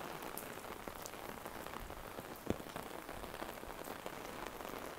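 Steady rain pattering, many small drop ticks in an even hiss, with one sharper tap about halfway through.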